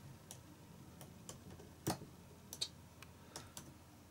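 A few faint, separate clicks, about six in all at uneven spacing, the loudest about two seconds in.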